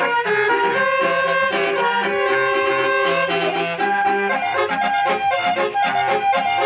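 Instrumental music: a melody of held, reedy notes over a bass line, with a steady beat coming in near the end.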